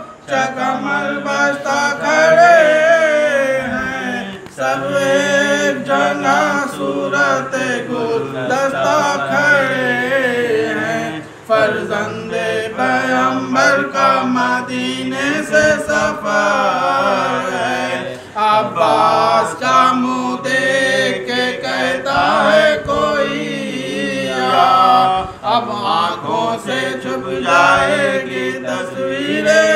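Several men chanting a Muharram noha (Urdu lament) together without instruments, in long held, bending lines broken by short pauses for breath.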